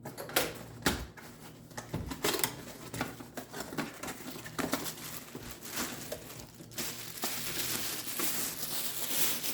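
Packaging crinkling and rustling as parts are unpacked from a box, with scattered knocks and taps. A denser, continuous rustle starts about seven seconds in.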